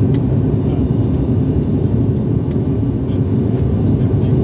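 Steady low drone of an airliner's engines and airflow heard inside the passenger cabin, as the plane climbs at about 374 km/h. A few faint clicks sound over it.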